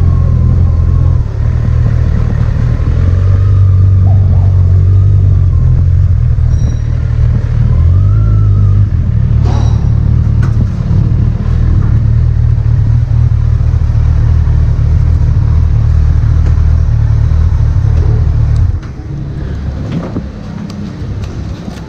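Kawasaki Z1000's inline-four engine running while the motorcycle is ridden along, a loud steady low drone that dips and rises slightly; it drops off sharply near the end.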